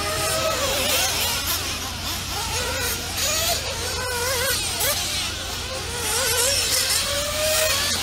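Several nitro-engined 1/8-scale RC off-road cars running laps, their small engines buzzing and rising and falling in pitch as they accelerate and back off.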